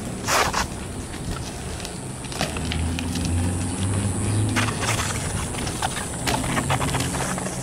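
BMX bike riding on concrete: tyres rolling with a low rumble and scattered sharp clicks and knocks from the bike.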